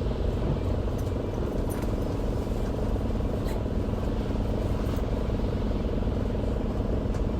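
Inside a Isuzu Erga city bus (QDG-LV290N1) under way: steady diesel engine and road noise, with a few faint rattling clicks from the cabin.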